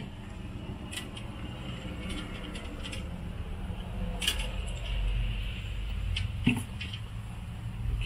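Steady low hum of the wine cooler's compressor running, with a few light clicks and rustles of thin thermocouple wires being handled.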